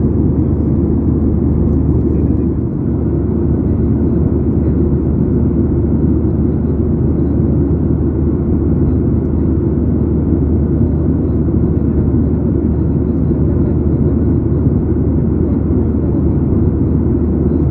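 Steady cabin drone of a Boeing 737-900ER in cruise: a low, even rumble of airflow and engines heard from a window seat over the wing.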